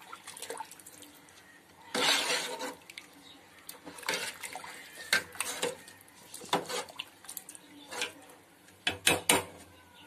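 A hand swishing and splashing through watery biryani masala in a steel pot, in intermittent swirls. A few sharp clinks of a steel ladle against the pot come near the end.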